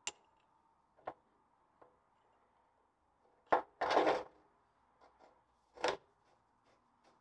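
Metal clicks and knocks from a Land Rover leaf-spring shackle plate and bolt being handled and fitted, with a short scraping rub about four seconds in, the loudest part.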